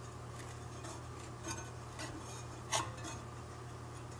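Faint scattered metallic clicks and clinks, the clearest near the three-second mark, from the belt-drive flywheel of a Norge Rollator refrigerator compressor being turned by hand, over a low steady hum. No hissing of escaping refrigerant is heard.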